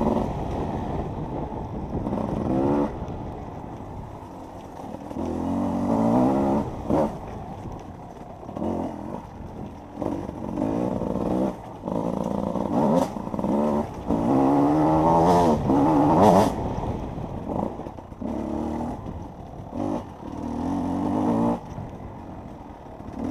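Enduro motorcycle engine revving up and down with the throttle on an off-road course, its pitch climbing in repeated bursts and dropping off between them. A few sharp knocks come through about halfway.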